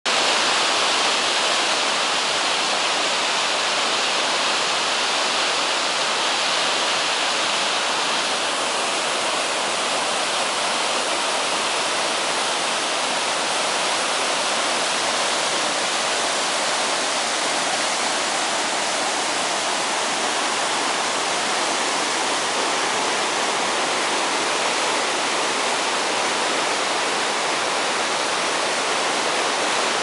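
Mountain waterfall cascading over boulders: a steady, loud rush of water, a little brighter and hissier for the first eight seconds or so.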